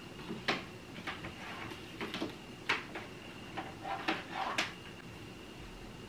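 Irregular clicks, knocks and short rustles of objects being handled, about eight spread over the few seconds, over a faint steady high tone.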